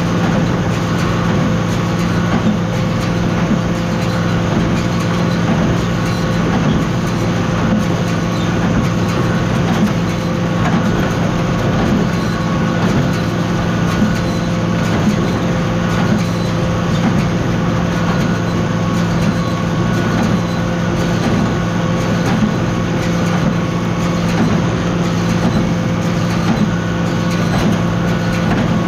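Tractor running steadily under load, pulling a working small square baler, with an even mechanical drone.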